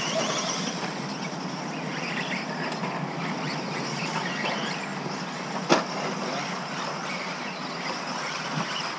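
Electric two-wheel-drive 1/10 RC buggies racing on the track: a steady mix of motor whine and tyre noise, with faint whines wavering in pitch as the cars accelerate and brake. One short, sharp knock comes a little past halfway.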